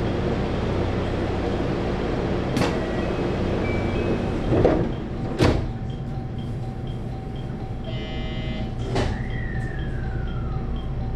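A JR 223-series electric train standing at a station with a steady low hum and rumble. There are a few clunks, a short buzz about eight seconds in, then a thump with a tone gliding downward as the sliding doors close before departure.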